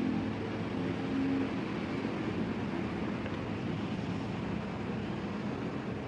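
Steady rushing background noise at an even level, with a faint low hum in the first second or so and no distinct clicks or tears.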